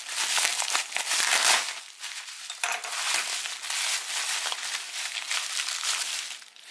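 Packaging crinkling and crackling as a bag wrapped around a watch is opened and unwrapped by hand. The crackling is loudest in the first couple of seconds.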